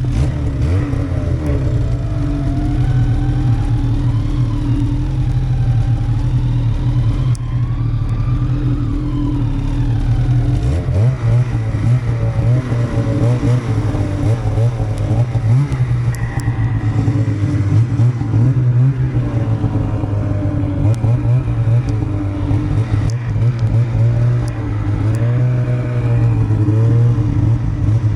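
Snowmobile engines running while riding, the revs rising and falling.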